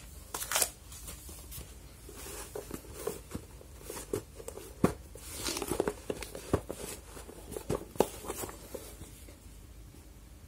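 Hands handling and turning a tape-wrapped cardboard parcel: irregular rustles, scrapes and sharp taps of the cardboard, with a few louder knocks about half a second in, near the middle and near the end.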